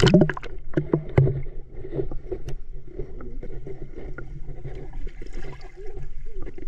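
Muffled swimming-pool water heard from a microphone under the surface: low gurgling and sloshing with scattered small clicks and knocks, after a brief splash at the start.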